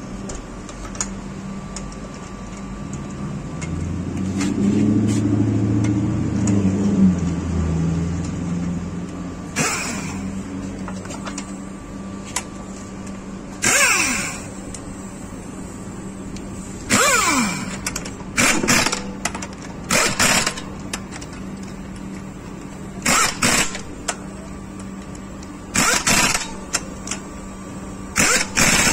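Impact wrench run in about eight short bursts, each winding up and down, spinning in and tightening the wheel bolts of a Mercedes-Benz wheel being refitted. The bursts start about a third of the way in. Before them, over a steady hum, a low engine-like rumble swells and fades.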